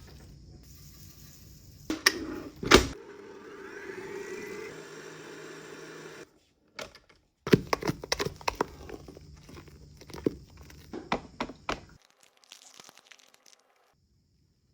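Kitchen handling sounds in short cut-together clips: a couple of sharp knocks, a stretch of steady hiss, then a quick run of clicks and clatters.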